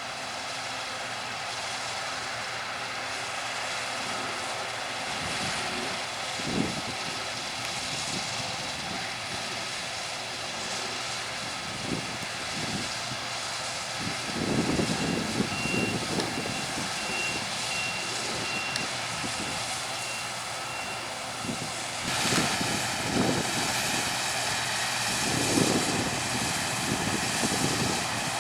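Combine harvesters and tractors working a wheat field: a steady engine drone with several low rumbling swells. A faint, evenly repeated high beep sounds through the middle.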